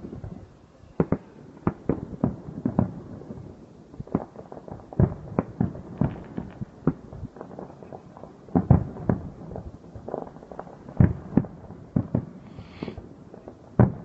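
Aerial firework shells bursting in a rapid, irregular string of bangs, several a second at times, with the loudest bangs about nine and eleven seconds in.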